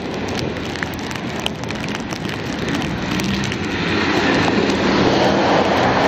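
Nor'easter wind and blowing snow rushing against a tape-wrapped camera, muffled and crinkly, swelling louder about halfway through, with scattered small clicks. A car's engine and tyres run on the slushy street underneath.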